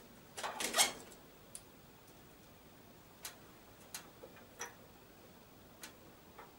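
Small plastic clicks and rattles of a power cable's connector being pushed onto a DVD drive inside a desktop computer case, a quick cluster about half a second in, then single clicks spread out every second or so as the cables inside the case are handled.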